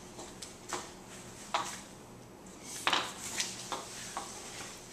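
Light knocks and clinks at uneven intervals, about half a dozen of them, from a person moving about and handling things close by.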